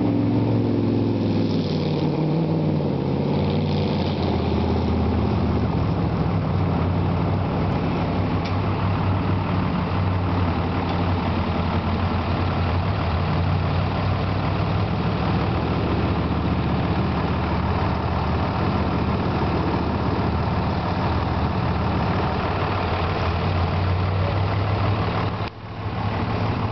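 An engine running steadily at idle, a constant low drone with a brief dropout near the end.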